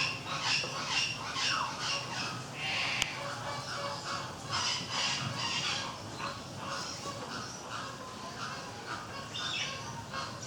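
Caique parrot giving a rapid run of short, high chirps and squawks, with one sharp click about three seconds in.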